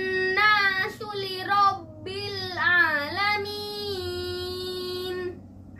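A young boy chanting Quran recitation in a melodic murattal style. His voice holds drawn-out notes with a wavering rise-and-fall ornament in the middle, and ends on a long held note about five seconds in.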